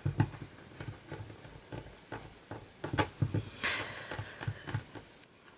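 Faint, irregular taps and soft rubs of fingers pressing and turning a polymer clay cane on a tabletop, with one brief rustle a little over halfway through.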